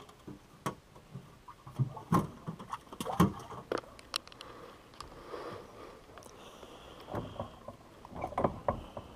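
Scattered knocks, clicks and rattles of fishing gear and feet against the hull of a small jon boat, irregular and loudest about three seconds in.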